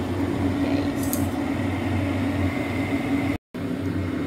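Steady low hum of a running electric motor, cutting out for a moment about three and a half seconds in.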